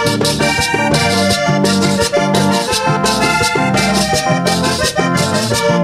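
Live vallenato music: a Hohner button accordion leads over electric bass, a hand drum and a metal guacharaca, with a steady beat of about two strokes a second.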